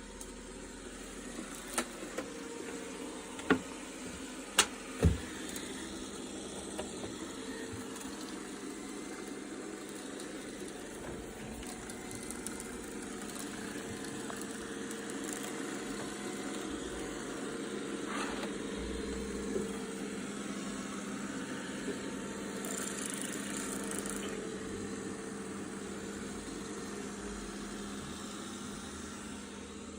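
Roborock S6 MaxV robot vacuum running with a steady motor hum, and a few sharp clicks or knocks in the first five seconds.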